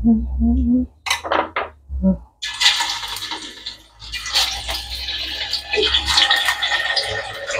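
Tofu pieces sizzling and crackling in hot oil in a wok as they are dropped in, starting suddenly about two and a half seconds in and then going on steadily. It opens with a woman humming and a few short clicks.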